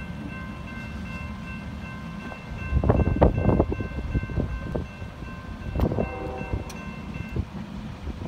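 Approaching train with its diesel locomotive rumbling, loudest in bursts in the middle, under the evenly repeated ringing of a grade-crossing bell that stops near the end.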